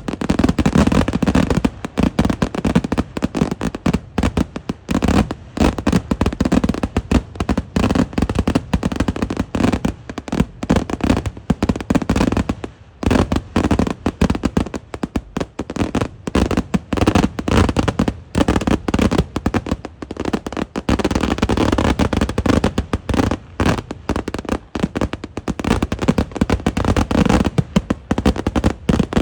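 Kerala temple-festival eeduvedi fireworks: a dense, unbroken string of loud explosions going off in rapid succession, with one short lull a little under halfway through.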